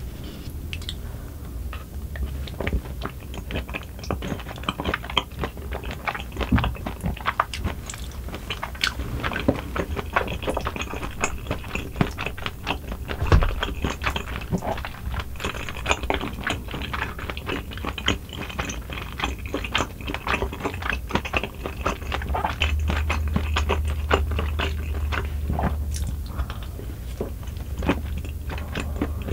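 Close-miked chewing of soft, chewy rice cakes in cream sauce: a dense run of wet, sticky mouth clicks and smacks.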